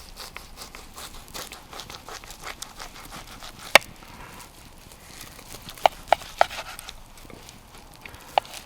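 A knife cutting through a roast beef joint on a board, with light scraping and rustling. Sharp clicks and taps of the blade or utensils come once a little before the middle, three in quick succession past the middle, and once near the end.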